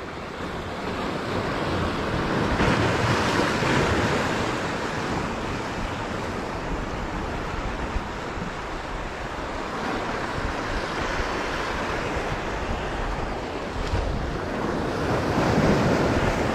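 Ocean surf breaking and washing over shore rocks, a dense rushing that swells louder about three seconds in and again near the end, with wind buffeting the microphone.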